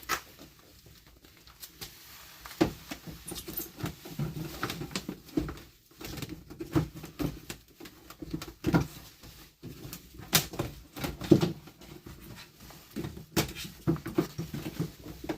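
Sound deadening mat being handled and pressed onto a car's panel: irregular taps, scrapes and crinkling, with a few sharper knocks.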